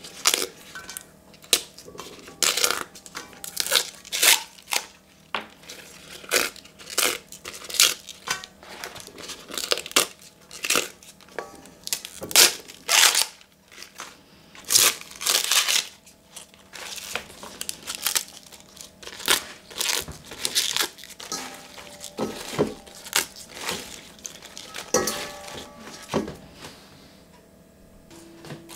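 Cavolo nero (Tuscan kale) leaves being torn by hand from their stems, a long irregular run of short crisp rips and crackles.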